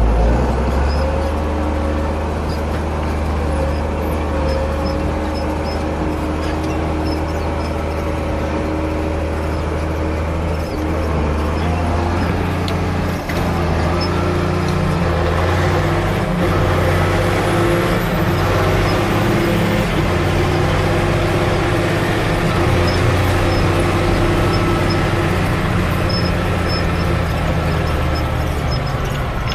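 Ford 8830 tractor's diesel engine running steadily at a constant speed.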